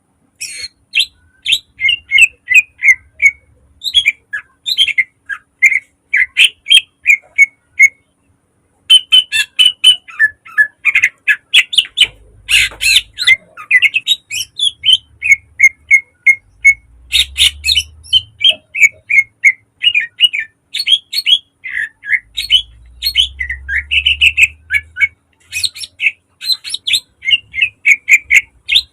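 Green leafbird (cucak ijo) singing a fast, dense run of short, sharp chirping notes, pausing once for about a second partway through. A faint low rumble sits underneath at times.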